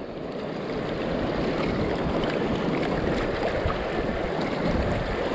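Steady rush of fast-flowing river current, with some wind on the microphone.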